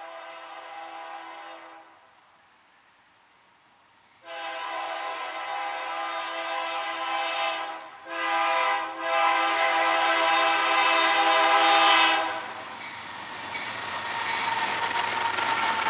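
Freight locomotive air horn sounding a multi-note chord for a grade crossing: a blast that ends about 2 s in, then after a pause a long blast, a short one and another long one. From about 12 s in, the BNSF GE C44-9W and NS GE ES44AC diesel locomotives pass close, with a rising rumble and wheel noise.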